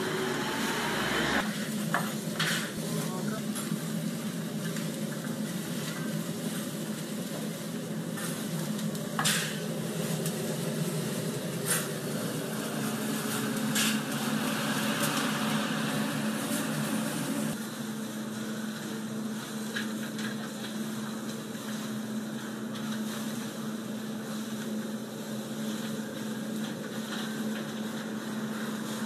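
Kokoreç (lamb intestines on spits) roasting over charcoal: a steady sizzle of cooking fat under a constant low hum, with a few sharp clicks and clinks scattered through. The sound gets a little quieter about two-thirds of the way in.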